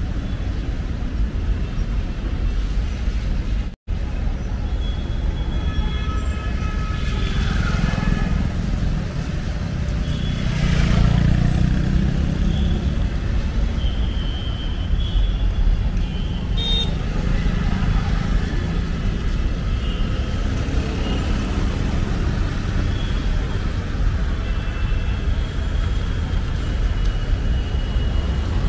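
Busy city road traffic: engines running and tyres hissing on a wet road, with vehicle horns tooting a few times. The sound drops out for an instant about four seconds in.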